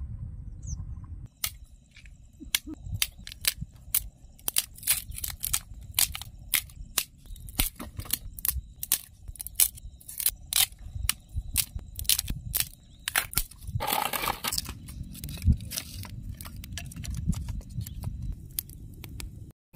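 Dry driftwood and sticks being snapped and broken by hand: a long run of sharp cracks, a few a second, with a longer rasping crack about fourteen seconds in, over a low rumble.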